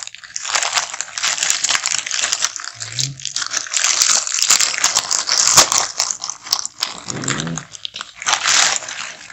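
Plastic courier mailer bag crinkling and tearing as it is pulled open by hand, a loud dense crackle full of sharp clicks. A short low voiced sound breaks in about three seconds in and again near seven seconds.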